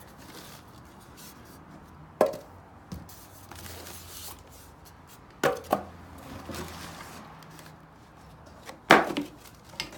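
Pressure-washer parts being handled, giving four sharp knocks and clunks, the loudest near the end.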